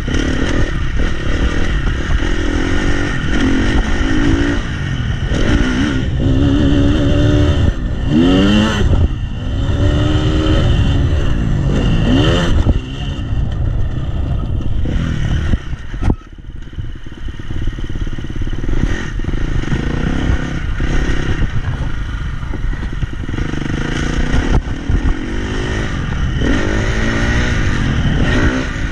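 Dirt bike engine under hard throttle, its pitch climbing again and again as it revs out and shifts up. About halfway through the throttle snaps shut and the sound drops sharply, then builds back up as the rider accelerates again.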